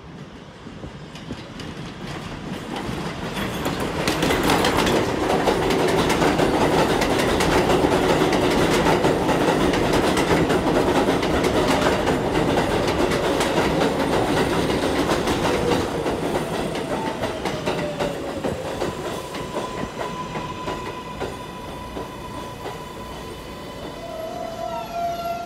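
R188 subway train on an elevated steel structure pulling into a station: wheels rumbling and clattering over the rail joints, growing loud as the cars pass close by, then easing as the train slows. In the last few seconds the motors whine, with the pitch shifting as it brakes toward a stop.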